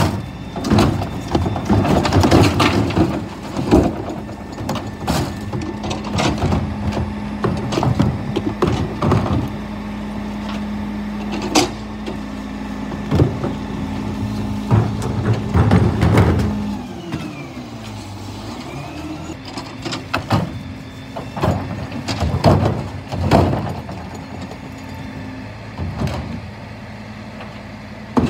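A Scania P320 bin lorry's five-cylinder diesel runs with the rear bin-lift hydraulics working, a steady hum under repeated clanks and bangs as wheelie bins are tipped and knocked against the lift. About seventeen seconds in, the steady hum drops away with a short falling glide, and the engine carries on at a lower note.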